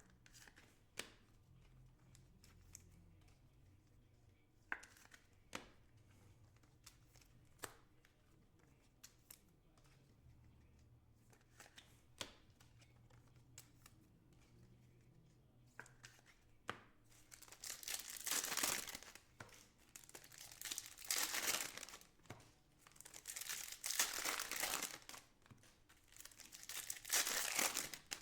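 Scattered light clicks of cards being handled, then from about 17 seconds in, the plastic wrapping of trading-card packs being torn open and crumpled, in several loud rustling bursts.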